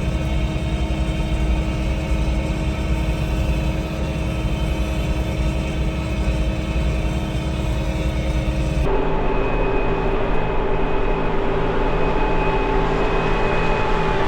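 Tractor engine running steadily while pulling a round baler through the hay field. The sound changes abruptly about nine seconds in, to a different steady engine note.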